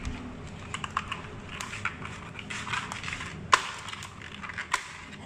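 Irregular clicks and scrapes as a bamboo stick is worked against a live mud crab's shell and the crab's legs move on a plastic tray. Two sharp, louder clicks come near the end.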